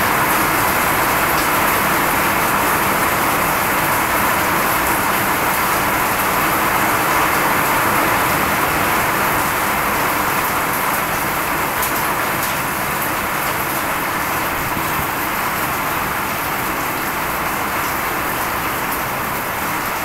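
Steady rain falling, an even hiss that eases off slightly toward the end.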